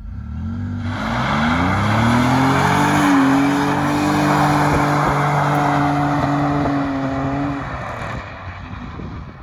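Car engine accelerating: its pitch rises over the first three seconds, then holds steady before fading away near the end.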